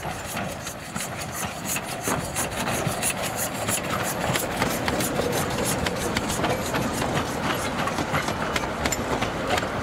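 Narrow-gauge steam train passing close by, its locomotive and then its wooden carriages rolling on the rails with irregular clicking and clattering from the wheels, growing louder over the first couple of seconds.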